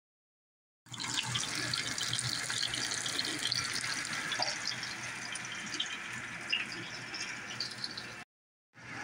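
Cauliflower florets frying in hot oil in a pan: a steady sizzle full of fine crackles, starting about a second in and cutting off for about half a second near the end before resuming.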